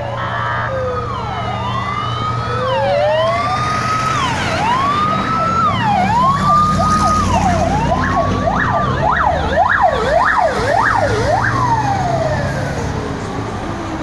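Fire engine siren, with a slow rising-and-falling wail that switches to a fast yelp about eight seconds in and then winds down in a long falling glide near the end. Fire-truck engines run underneath, and a steady air-horn tone cuts off just after the start.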